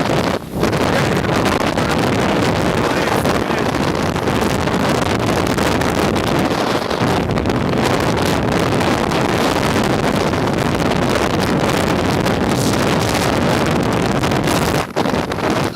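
Strong mountain wind buffeting the microphone: a loud, steady rushing rumble, with brief lulls about half a second in and near the end.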